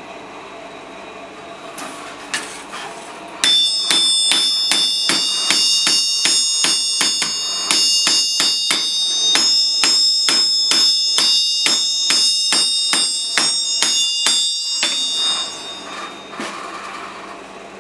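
Blacksmith's hammer striking hot steel on an anvil, about three blows a second for some eleven seconds, as the flattened blade of a fishing-gaff hook is forged. Each blow leaves the anvil ringing with high tones. Before the hammering there is a quieter steady hiss from the coal forge.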